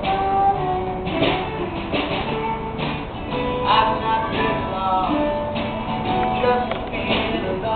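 Live band playing an instrumental passage led by strummed guitar, with no singing.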